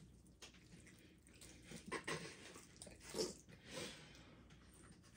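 Faint wet mouth sounds of someone chewing a mouthful of jello, with a few soft smacks about two, three and four seconds in.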